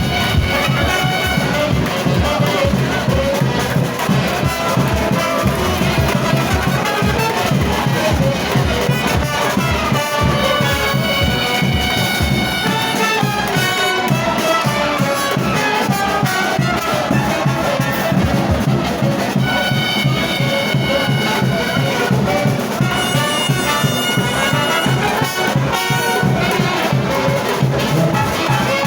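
Frevo played by a brass band: trumpets and trombones carry a lively melody over a quick, steady drumbeat.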